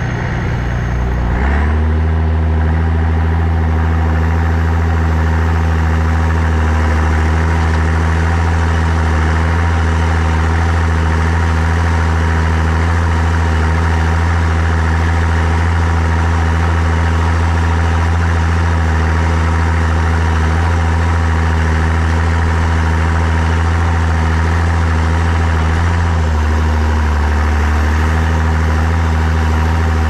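Tractor's Perkins diesel engine running steadily under load while pulling a plough. The note steps up and settles about a second and a half in, then wavers briefly near the end.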